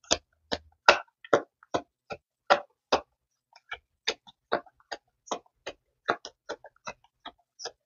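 A tarot deck being shuffled overhand, packets of cards dropping from one hand into the other with short clicks about three a second, louder in the first three seconds and softer after.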